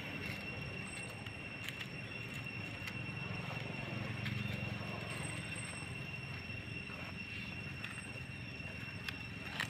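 Steady low background rumble, with a faint steady high-pitched whine and a few soft clicks.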